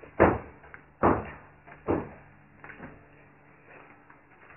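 Hammer blows from construction work: three loud strikes a little under a second apart, then a couple of fainter taps.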